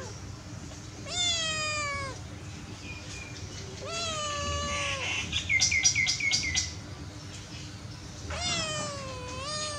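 Orange tabby kitten meowing: three long meows, each falling in pitch, about a second in, around four seconds in, and again near the end. Around the middle, a quick run of about six short high chirps is the loudest sound.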